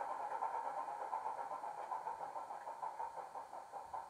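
Recorded Class 27 diesel engine sound, the Sulzer six-cylinder, played by a DCC sound decoder through a model locomotive's small speaker. It runs with a regular pulsing beat of about five a second and slowly grows quieter.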